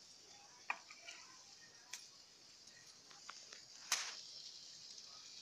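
A few light metal clinks of a steel ladle knocking against a steel cooking pan and bowl as soup is dished out, the loudest about four seconds in, over a faint steady hiss.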